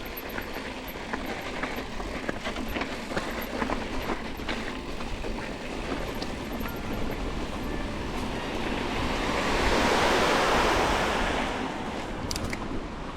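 Mountain bike rolling along a dirt trail, heard from a bike-mounted camera: steady tyre and trail noise with small rattles and ticks. A rushing noise swells up about two-thirds of the way in and fades again.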